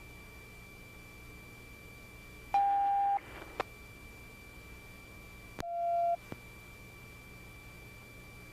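Police radio channel between transmissions: a faint steady high tone over a low hum, broken twice by a short loud beep, about two and a half and five and a half seconds in, the second slightly lower and shorter, each followed by a click.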